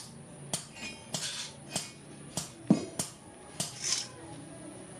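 Hand hammer striking steel on an anvil: about eight sharp blows, unevenly spaced, several with a brief metallic ring.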